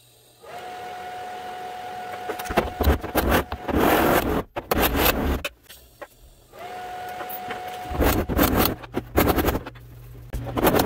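Hammer welding on a sheet-steel van quarter panel: twice, a short TIG weld hums with a steady tone from the arc, then a run of sharp hammer strikes on the fresh, still-warm weld follows to keep the panel straight.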